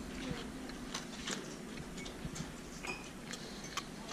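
A man chewing naan close to the microphone: soft, irregular mouth clicks over a low steady hum.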